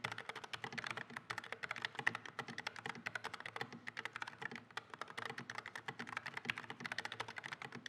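Fast continuous typing on a NuPhy Air60 low-profile mechanical keyboard with Gateron low-profile brown tactile switches and PBT keycaps: a dense run of light clacking keystrokes, many per second.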